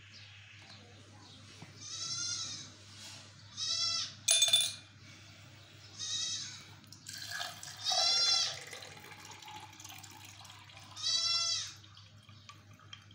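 A goat bleating about five times. A sharp clink about four seconds in is a small stone dropped into a drinking glass. Near the end, water is poured faintly into the glass.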